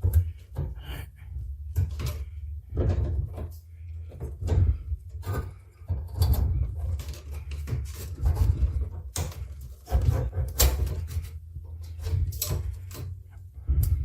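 Irregular clicks, knocks and rattles of plastic parts and wire connectors being handled and pulled apart while an air conditioner's control board assembly is dismantled, over a steady low hum.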